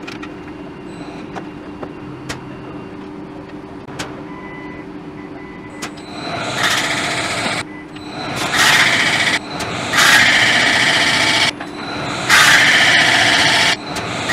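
CNC alloy-wheel lathe running with a low steady hum, then from about six seconds a loud hissing cutting noise as the tool skims the face of the spinning alloy wheel, in several stretches that start and stop abruptly.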